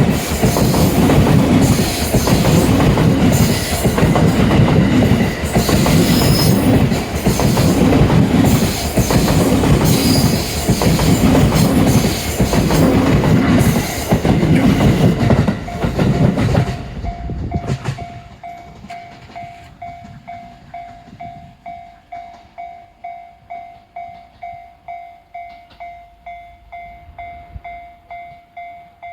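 An E657 series electric limited express train passing close by at speed, its wheels clacking in a steady rhythm about once a second, until the last car clears after about seventeen seconds. The level crossing's warning bell then rings on, a repeating tone about twice a second.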